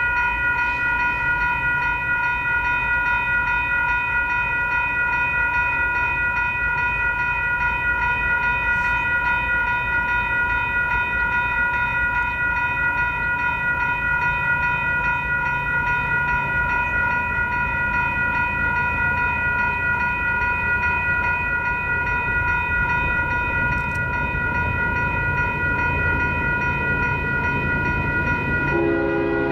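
A steady pitched tone with several overtones holds unbroken throughout and drops to a lower pitch near the end. Under it a low rumble from a distant freight train's diesel locomotives builds from about halfway through as the train approaches.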